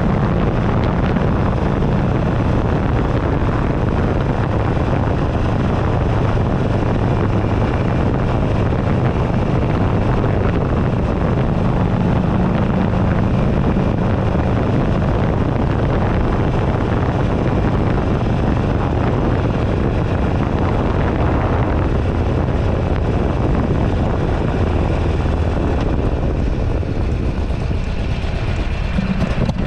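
2008 Buell Ulysses XB12XT's air-cooled V-twin running under way, heard from a handlebar-mounted camera, with heavy wind rushing over the microphone. The wind eases a little near the end.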